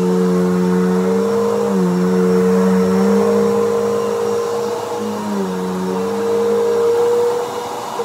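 Bissell PowerForce bagged upright vacuum cleaner running on carpet. Its motor hum dips and rises in pitch a few times as it is pushed and pulled, and near the end it is switched off and begins to wind down with a falling whine.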